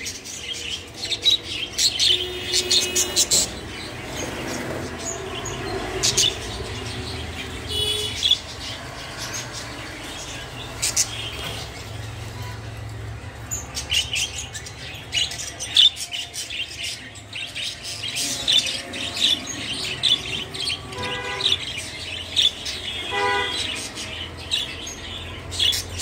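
Caged budgerigars chirping and chattering: bursts of quick, high chirps with a few longer pitched calls mixed in.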